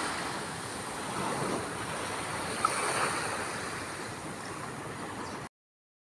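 Ocean surf washing in: a steady rush of waves that swells a little twice, then cuts off abruptly near the end.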